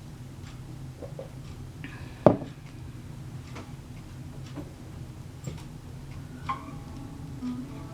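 Wood fire crackling in a fireplace: scattered small irregular pops, with one loud sharp pop about two seconds in, over a low steady rumble. Near the end a guitar begins to play.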